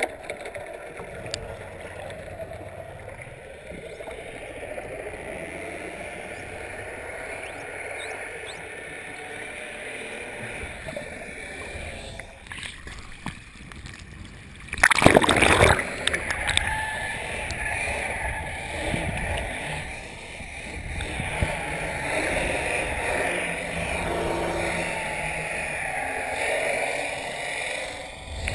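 Muffled underwater water noise through an action camera's waterproof housing. About halfway through there is a loud splash as the camera breaks the surface, followed by uneven sloshing of waves around it.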